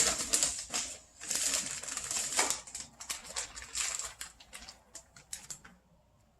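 Packaging rustling and crinkling, with quick clicks and taps as items are handled out of a box. Dense at first, it thins out after about three seconds and dies away near the end.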